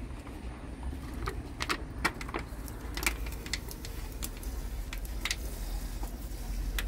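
Light, irregular metallic clicks and taps of small hydraulic valve parts being handled at an excavator's control valve block, over a steady low rumble.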